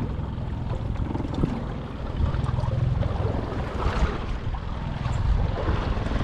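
Boat motor running steadily at trolling speed, a low even hum, with wind noise over it.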